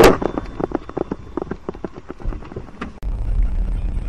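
A sharp crack at the start, the end of a car crash, then scattered light knocks and clatter that fade over about three seconds. About three seconds in, a steady low rumble of a car driving takes over.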